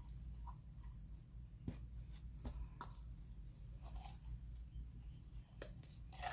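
Slime being squished and pulled by hand, giving scattered faint sticky clicks and crackles over a low steady hum.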